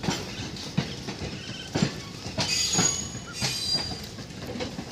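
Train wheels running over rail joints, heard from aboard a slowly moving train: irregular clunks every half second to a second over a steady rumble, with a faint high wheel squeal now and then.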